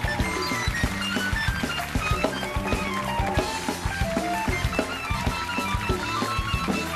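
Studio house band playing an upbeat instrumental: electric guitar with bent notes over bass and a steady drum beat.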